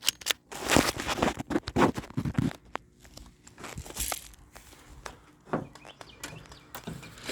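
Crunching and rustling footsteps, as of someone moving fast through brush or dry leaves, dense and loud for the first two and a half seconds, then slower and quieter with scattered sharp clicks.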